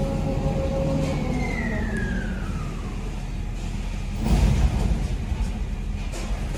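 Rotating car elevator platform in motion: the drive gives a low rumble and a whine that falls in pitch, then a heavy clunk about four seconds in as the platform comes to rest.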